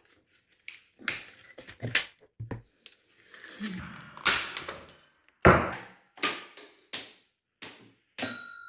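Clear plastic packaging crinkling and rustling, with scattered small clicks and taps, as a tiny doll accessory is unwrapped by hand. A louder thump comes about five and a half seconds in.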